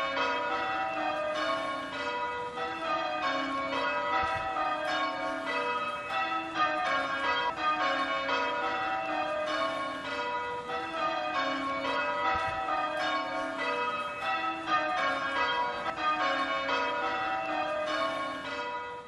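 Church bells change ringing: a peal of tower bells struck one after another in a steady, even rhythm, their tones overlapping as each rings on. The spire's repair is finished and the bells are back in use.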